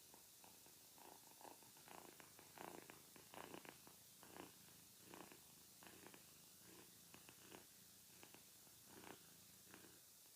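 Cat purring sound effect, faint over a steady hiss, coming in uneven pulses that are strongest a few seconds in.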